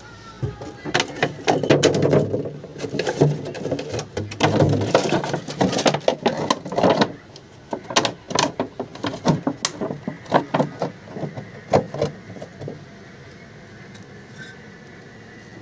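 Irregular clicks, knocks and crackling of a clear plastic jar being handled and set against a brick wall. The sounds stop shortly before the end.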